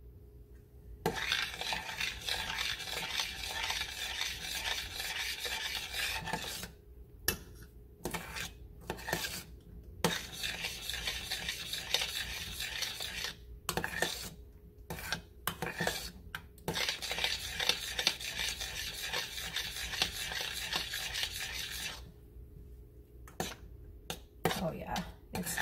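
Metal spoon stirring a thickening strawberry-cornstarch glaze in a stainless steel saucepan, scraping across the pan in stretches of several seconds at a time, with brief pauses holding a few clinks of the spoon against the pan.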